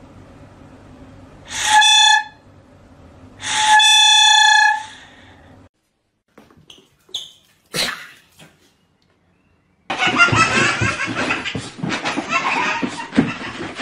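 Plastic toy horn held in a golden retriever's mouth sounding two blasts, a short one and then a longer one about two seconds later. About ten seconds in, a busy jumble of noise starts.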